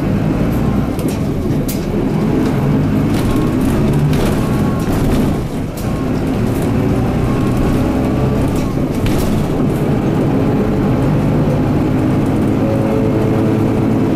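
Mitsubishi Fuso Aero Midi MK bus's 6M61 inline-six diesel running under way, heard from inside the cabin, with a brief dip in the engine sound about halfway through before it picks up and rises again. Scattered light clicks run over it.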